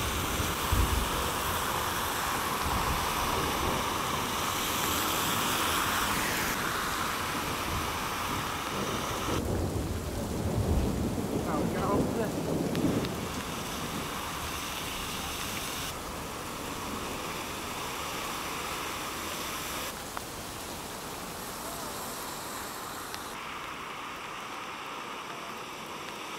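Heavy rain falling on flooded streets, a steady hiss whose level and tone jump at several cuts. A low rumble swells about ten to thirteen seconds in.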